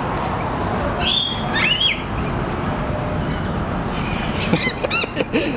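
Lorikeets squawking: two harsh screeches about a second in, then a quick run of shrill chirps near the end, over a steady background hiss.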